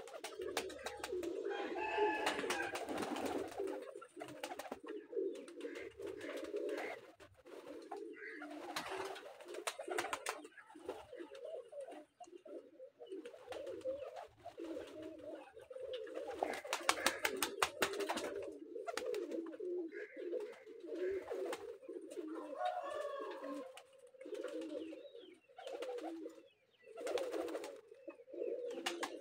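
A flock of domestic pigeons cooing almost without pause, several birds overlapping. A few short bursts of wing flapping break in, about a third of the way through, past the middle and near the end.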